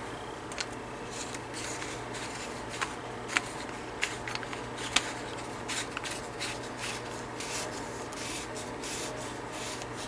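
A plastic telephone handset being handled and put back together: scattered small clicks, taps and rubbing, with a few sharper clicks.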